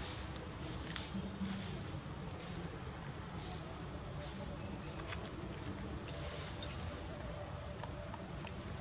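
Insects droning steadily on one high pitch, over a low background rumble.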